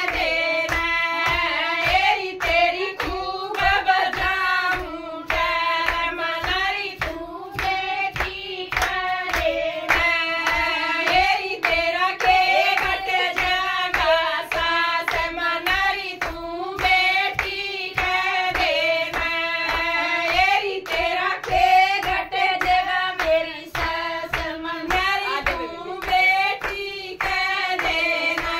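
Women's voices singing a Haryanvi devotional folk bhajan, with hand clapping keeping a steady beat under the melody.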